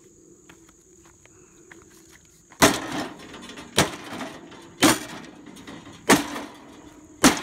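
Sledgehammer blows on the thin sheet-metal firebox of an old charcoal grill, which is not cast iron. Five hard strikes land a little over a second apart, starting a couple of seconds in, each a sharp bang with a short clattering tail.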